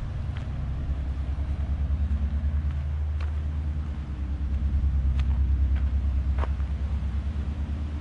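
A steady low engine rumble, with a few light clicks scattered through it.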